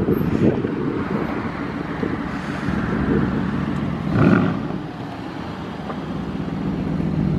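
Aston Martin Vantage's twin-turbo V8 running at low speed as the car rolls up, a steady low hum with a brief louder swell a little over four seconds in, and wind on the microphone.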